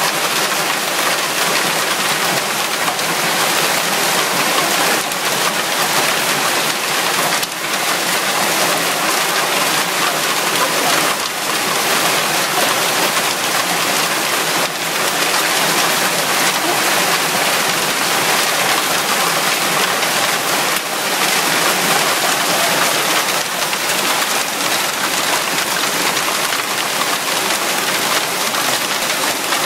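Hailstorm of ping-pong-ball-sized hailstones with heavy rain, pelting parked cars, pavement and a wooden deck in a dense, steady hiss.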